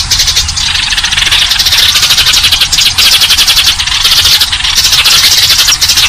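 Many Eurasian tree sparrows chirping at once: a loud, dense, unbroken chatter of rapid high chirps, the kind of flock recording played as a lure call to attract sparrows.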